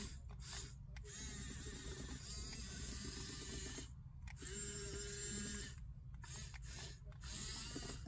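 Small electric motors and plastic gearing of a Huina 1554 RC bulldozer whirring in several start-stop bursts as its blade is lowered and raised.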